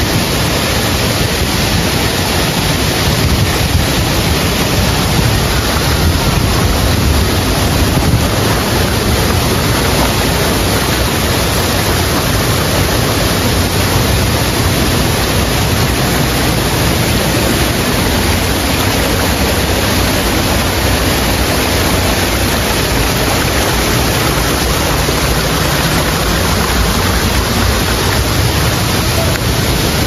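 Steady loud rushing of water from a waterfall and its stream, an even hiss-and-roar that does not change.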